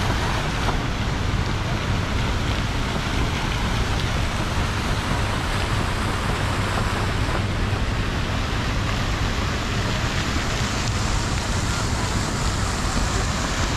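Steady rushing and splashing of fountain water, an even spray noise that holds at the same level throughout.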